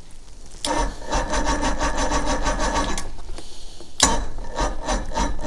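Johnson 90 hp two-stroke V4 outboard running with a harsh, rapid rasp, out of the water on flush muffs; it sags briefly about three seconds in and picks up again a second later.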